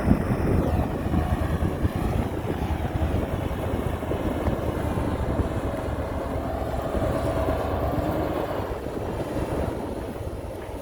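Diesel engine of a heavy construction machine running steadily, easing off slightly near the end.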